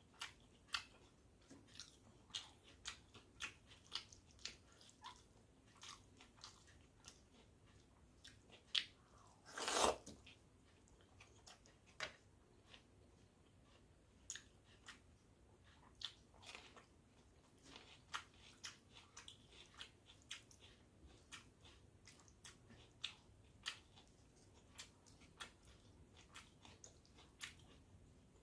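Close-up eating sounds of a meal of soaked rice and sides: chewing, lip smacks and crunchy bites make a steady string of small clicks. One louder, longer sound comes about ten seconds in.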